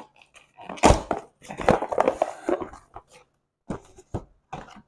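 A cardboard box being opened and unpacked by hand. There is a thump about a second in, then rustling and crinkling of packing paper and cardboard, and a few short taps near the end.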